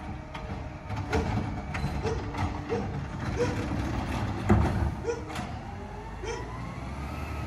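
Peterbilt 520 McNeilus ZR garbage truck working down the street: its diesel engine rumbles steadily, revs up and back down near the end, and a heavy clunk sounds about four and a half seconds in. A short chirp repeats about every half second.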